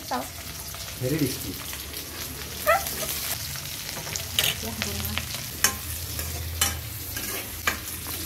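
Oil sizzling steadily in a steel wok as sliced onions and garlic fry, with a few sharp metal clinks of a utensil against the pan in the second half.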